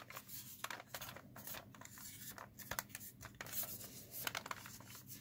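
Hard plastic shell of a Nerf Strongarm blaster being handled: scattered light clicks and scrapes of plastic parts rubbing and knocking against each other.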